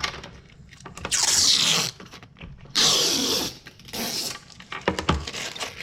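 Three bursts of rustling as packaging is handled, followed by a few light clicks.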